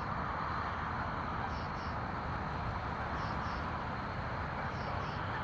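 Steady outdoor background noise, a low rumble with hiss, with faint short high-pitched sounds in pairs about every second and a half.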